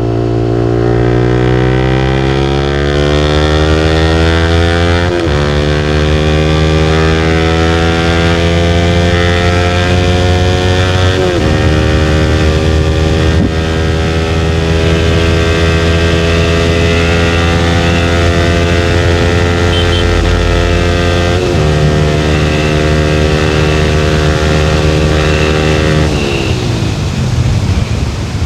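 Yamaha motorcycle with an SC Project exhaust riding under power, its engine note climbing slowly with sudden steps in pitch about 5, 11 and 21 seconds in. Near the end the engine note falls away and only wind rush is left.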